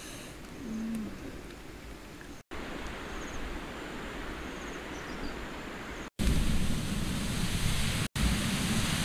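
Large pot of snails and eggs boiling hard over a wood fire: a loud, steady bubbling hiss that comes in suddenly about six seconds in. Before that there is faint, steady outdoor ambience.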